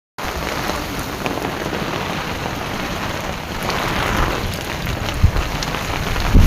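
Heavy rain falling steadily, with a couple of short low thumps near the end.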